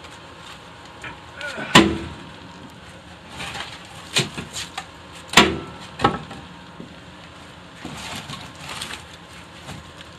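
Firewood splits being tossed into the steel firebox of a wood-burning furnace: several sharp knocks of wood on wood and metal, a second or more apart, the loudest about halfway through, with lighter clattering between.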